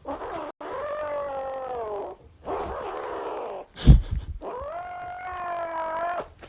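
A pet animal howling in long, drawn-out, wavering notes, with a short, sharp knock a little under four seconds in, the loudest sound here.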